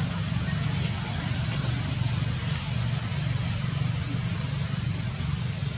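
Steady, unbroken high-pitched drone of insects in the trees, over a low steady rumble.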